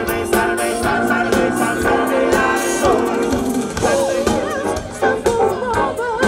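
Live band music with a singer's vocal line over the band and regular drum hits.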